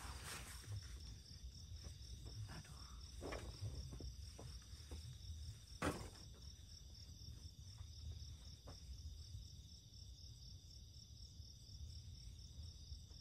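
Night crickets chirping steadily in a fast, even pulsing chorus. A few light knocks and rustles come through it, the sharpest about six seconds in.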